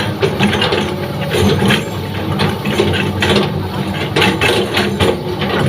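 Heavy diesel engine running steadily, with irregular mechanical clatter over it.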